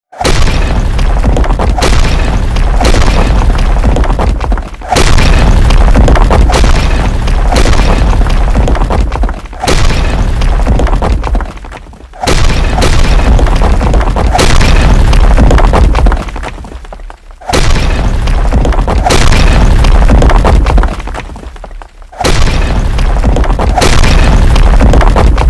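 Sound effect of a heavy stone falling and breaking: a sudden loud crash with a deep rumble of tumbling rubble, repeated about five times, each lasting several seconds.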